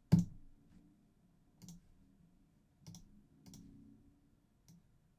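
Computer mouse clicks, about five spaced a second or so apart; the first, just after the start, is much the loudest, with a dull thump under it.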